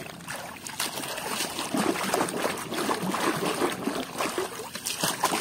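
Water splashing and trickling as a toy is washed by hand, with many small knocks and splashes.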